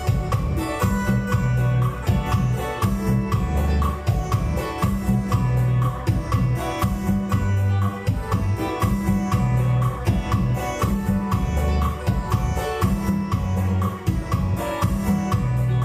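Instrumental music with a steady drum beat, a repeating bass line and guitar.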